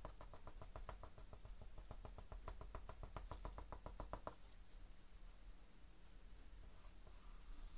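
Graphite pencil scratching out rapid short hatching strokes on drawing paper, about nine strokes a second, stopping abruptly about four and a half seconds in. Softer, slower pencil scratching follows near the end.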